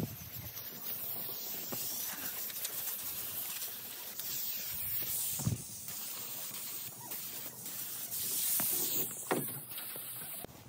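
Hiss of a cheap Harbor Freight compressed-air paint spray gun spraying paint onto the hull. A couple of brief dull thumps come about five and nine seconds in.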